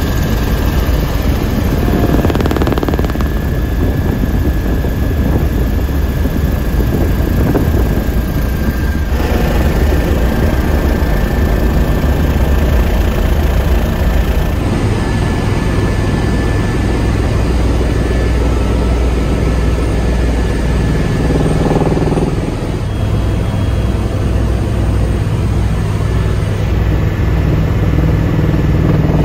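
Turbine helicopter in flight, heard from inside the cabin: a steady low rotor drone with a thin, constant turbine whine. The sound changes abruptly a few times where the shots are cut.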